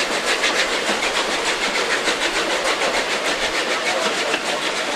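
Metre-gauge steam locomotives at the head of the train exhausting in rapid, even chuffs as they haul it up a steep 5% grade.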